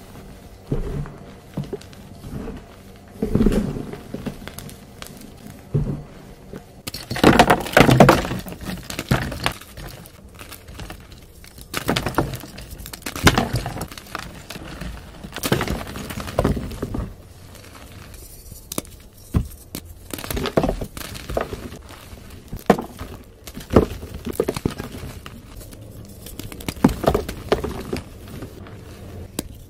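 Dyed chalk blocks being crushed and crumbled by hand into powder, with a run of irregular crunches and soft squeezes. The densest, loudest crunching comes about seven to nine seconds in.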